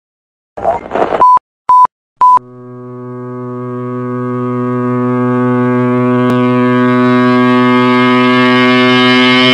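A brief noisy burst, then three short electronic beeps at one high pitch, then a steady drone rich in overtones that swells slowly louder, the lead-in before distorted guitar music starts.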